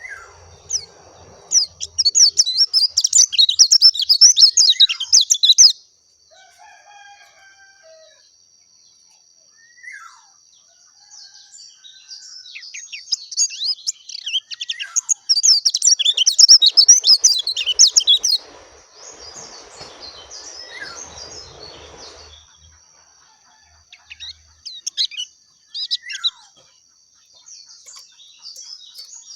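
Pleci dakun white-eye singing: two long, loud, rapid high twittering song phrases, the first about two seconds in and the second near the middle, with short scattered chirps between and after them.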